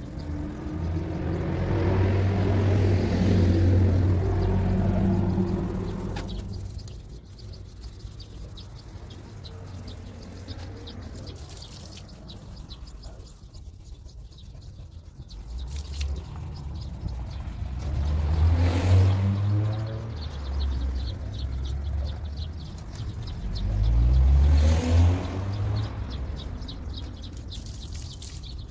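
Motor vehicles driving past one after another, engine notes rising in pitch as they accelerate: one through the first few seconds, another about two-thirds of the way in, and a third near the end.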